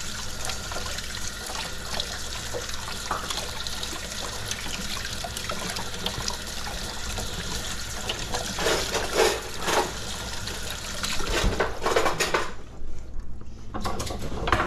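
Kitchen faucet running onto hands being washed over a stainless steel sink: a steady rush of water that shuts off about twelve and a half seconds in. A few knocks and clatters follow near the end.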